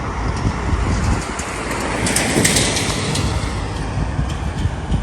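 Street traffic noise: a continuous low rumble of passing vehicles, with a louder rush of a vehicle going by about two seconds in.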